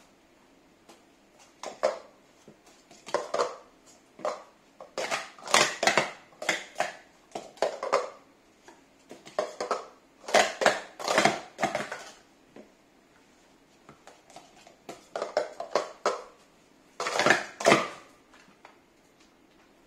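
Plastic speed-stacking cups clattering in rapid bursts as they are stacked up into pyramids and swept back down, the bursts coming in clusters over about sixteen seconds.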